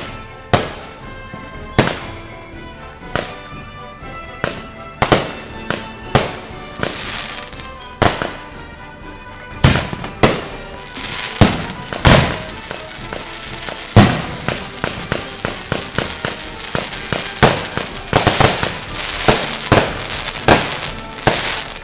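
Fireworks bursting overhead: sharp bangs about once a second at first, then from about ten seconds in a denser barrage of bangs with crackling. Background music plays underneath.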